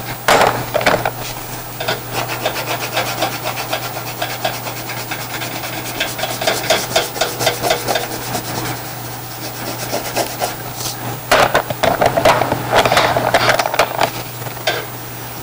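Crayon scribbling on paper: rapid back-and-forth coloring strokes, heaviest about a second in and again from about eleven to fourteen seconds, stopping just before the end.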